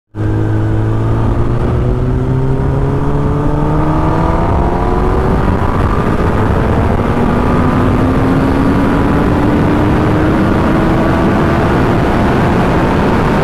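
Motorcycle engine pulling steadily under way, its pitch slowly rising, over a constant rush of wind and road noise.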